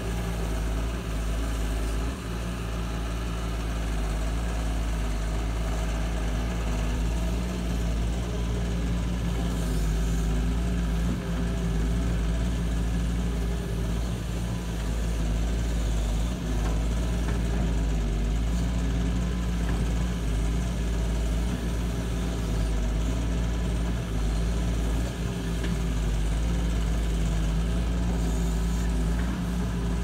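Diesel engine of a Doosan DX140W wheeled excavator running at a steady speed while the machine works its boom and arm, a constant low rumble with an even hum.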